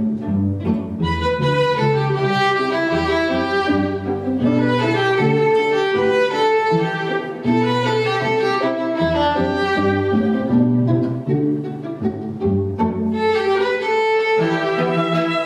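Background music of bowed strings, violin over cello, playing a melody of held notes that change every second or so.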